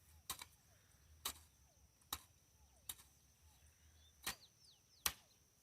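A hoe chopping into wet soil, about six strokes at roughly one a second. Faint bird chirps between them.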